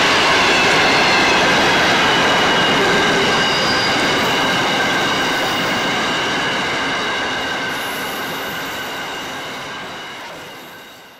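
Grain hopper wagons rolling past: a steady rumble of wheels on rail with several high, steady squealing tones, typical of wheel squeal. The sound fades away near the end as the last wagon passes.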